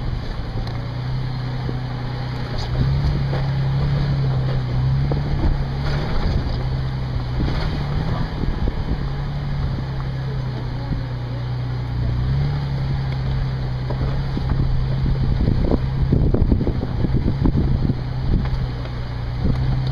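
Off-road 4x4's engine running at low revs as it crawls over a rocky trail, its pitch rising and falling a little with the throttle, with wind buffeting the microphone. Knocks and clunks from the tyres and suspension on the rocks come thicker about two-thirds of the way in.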